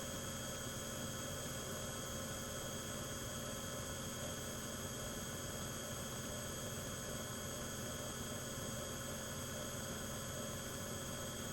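CNC milling machine running steadily, its spindle at about 7,000 RPM: an even mechanical hum with fixed high whining tones.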